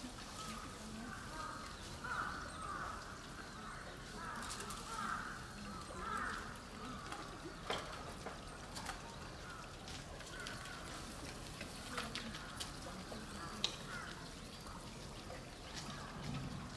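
Faint outdoor background of crow calls, heard mostly in the first half as short clusters of caws. A few sharp clicks stand out, the loudest near the end.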